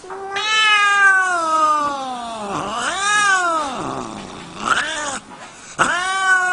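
Cat yowling: long drawn-out calls that slide slowly down in pitch, with a shorter rising-and-falling yowl and a brief one in between, and another long falling yowl starting near the end.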